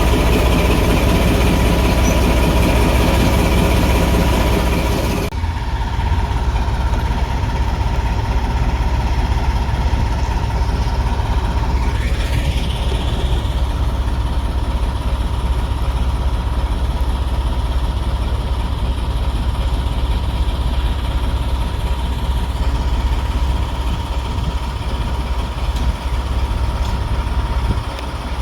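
Heritage diesel locomotive's engine running steadily with a deep low rumble and a constant tone. About five seconds in the sound changes abruptly, losing much of its higher range, and then runs on.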